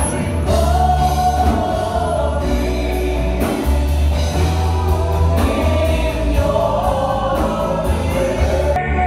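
Live Christian worship music: voices singing long held notes together over a band with a heavy bass.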